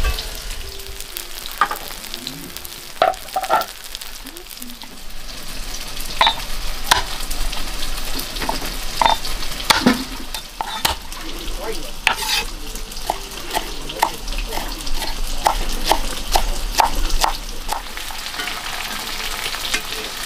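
Food sizzling and being stirred in a pan, a steady frying hiss broken by frequent irregular clicks and knocks.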